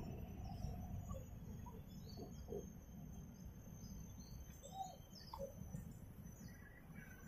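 Small birds chirping in short, high notes, about two a second, over a low steady background rumble.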